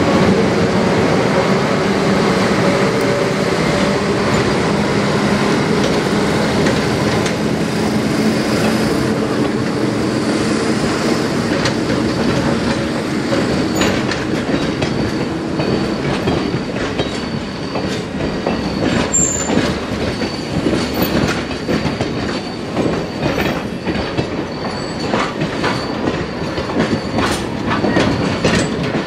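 Passenger train cars rolling slowly past: a steady engine hum fades over the first several seconds, then the wheels click over rail joints in uneven runs, with a thin, high wheel squeal held through much of the passage.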